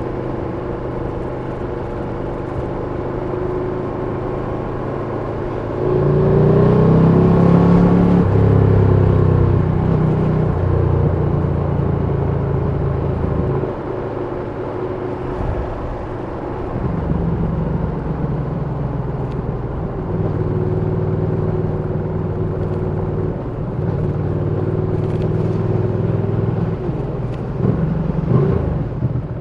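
2020 Ducati Panigale V2's V-twin engine running under a rider. Its pitch climbs and it gets louder about six seconds in, then it settles. It drops back briefly around the middle and picks up again.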